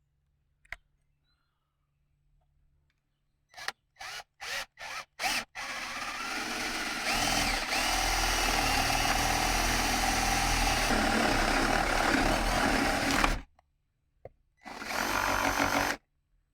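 Power drill boring into a wooden door jamb for a deadbolt: a few short trigger bursts, then a steady run of about eight seconds, and one more short run near the end.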